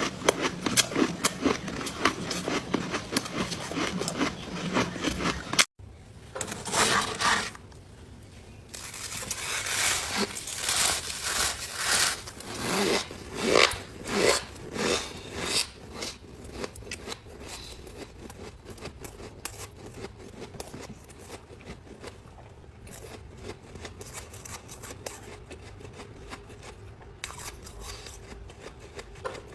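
Squeaky ice being chewed and crunched close to the microphone, a dense run of rubbing, grinding crackles. The sound breaks off abruptly about six seconds in, then returns as a string of separate crunches that fade to softer crackling near the end.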